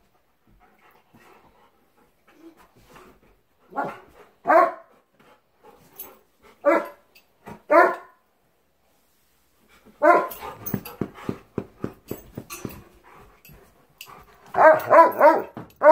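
A pet dog barking indoors: a few single barks, then a longer run of calls a little after the middle, and a quick cluster of barks near the end.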